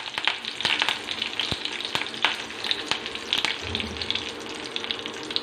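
Curry leaves frying in hot sesame oil in a kadai: a steady sizzle with frequent sharp crackles and pops as the moisture in the leaves spits in the oil.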